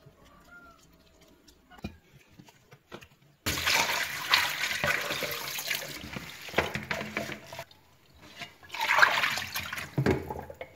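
Kitchen tap water splashing into a stainless steel sink as fish in a plastic colander are rinsed. The water comes on suddenly about three and a half seconds in, runs for about four seconds, eases off, then gushes again near the end.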